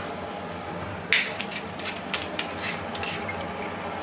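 Quiet kitchen handling sounds: a light knock about a second in and a few softer clicks of bottles and utensils, over a steady low background.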